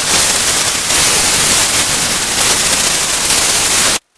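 Oxy-acetylene torch flame hissing steadily and loudly while heating a stuck cast-iron part on a tractor front axle to help free it. The hiss cuts off suddenly about four seconds in.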